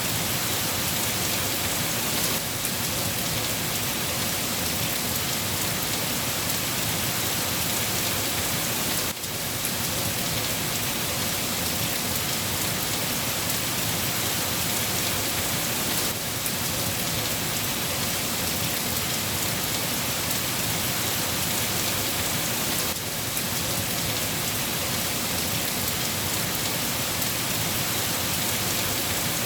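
Steady heavy rain falling on a surface: a dense, even hiss of drops with no let-up. A brief slight dip in level comes about every seven seconds.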